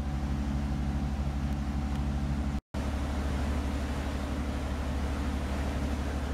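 Cabin cruiser's engine running steadily at cruising speed, a low even drone with water and wind rushing along the hull. The sound cuts out for an instant about two and a half seconds in, then carries on the same.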